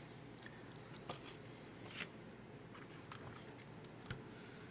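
Faint, sparse clicks and taps of a small plastic trim piece being handled and fitted onto a JVC Everio camcorder body, a few light ticks spread over a few seconds.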